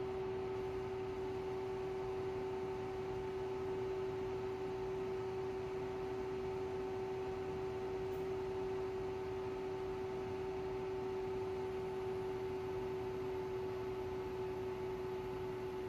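Steady electrical hum with one clear mid-pitched tone and fainter higher tones above it, unchanging, from a bench power-supply test setup running under a 10 A load.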